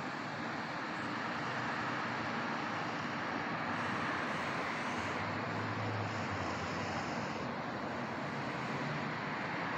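Steady, even rushing background noise outdoors, with no distinct events and a faint low hum midway.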